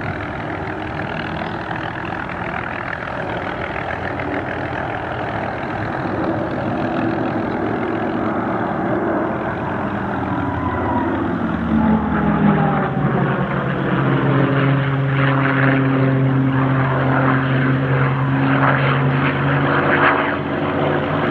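Propeller-driven piston warbirds flying past in formation, their engines droning. About halfway through the engine note drops in pitch as the aircraft pass, and the sound grows louder and steadier toward the end.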